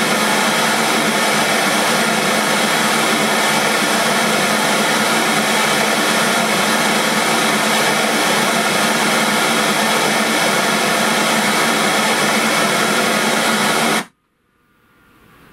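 FSD audio Standart 165 V 6.5-inch midrange speaker playing a steady noise test signal at a constant level, which a sound meter reads at about 75.6 dB. It cuts off abruptly about 14 seconds in, leaving faint room tone.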